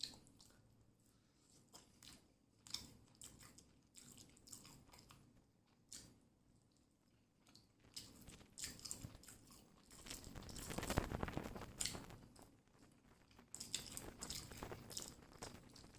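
Close-up chewing and biting of food, with irregular crunches and wet clicks that grow busier and louder about two-thirds of the way in.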